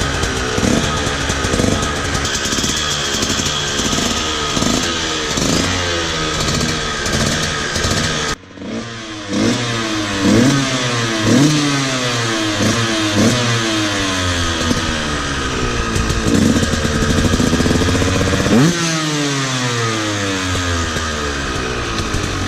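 Two-stroke dirt bike engine accelerating hard: the pitch climbs again and again and drops at each gear change, with an abrupt break about eight seconds in.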